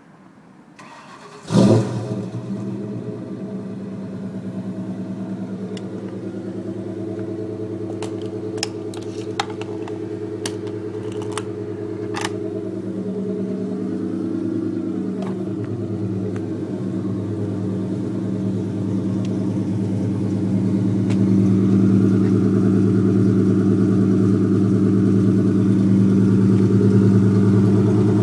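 2004 Mustang GT's 4.6 L V8, breathing through long-tube headers, an off-road H-pipe and Mac mufflers, starting cold: it fires about a second and a half in with a loud flare, then settles into a steady, loud idle. The exhaust grows louder near the end as the sound is picked up close to the tailpipes.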